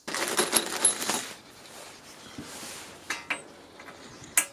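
Metal mounting-frame rails and small screws clinking and rattling as they are handled during assembly: a burst of clatter with bright ringing clinks for about the first second, then quieter small handling noises and one sharp click near the end.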